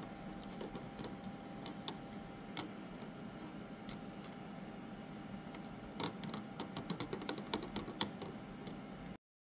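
Scattered small clicks and taps of a metal clip and a gold-plated pendant against a plastic tub of rinse water, with a quicker run of clicks about six seconds in; the sound cuts off suddenly near the end.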